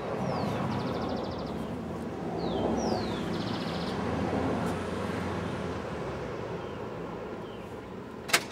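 Outdoor street sound: a low vehicle rumble swells and eases, while a songbird repeats a phrase of a falling whistle followed by a quick trill. A single sharp click near the end is the loudest sound.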